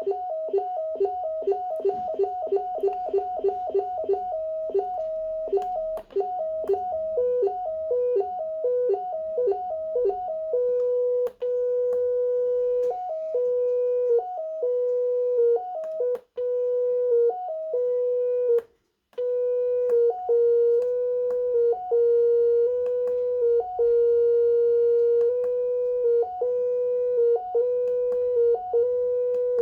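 Electronic beeping from a breadboard synthesizer sequencer, played through its small LM386-amplified speaker, stepping through a few buzzy notes in a repeating pattern. The notes come about four a second at first, then slow from about ten seconds in, with long held notes broken by short higher or lower blips. The sound cuts out briefly near the middle.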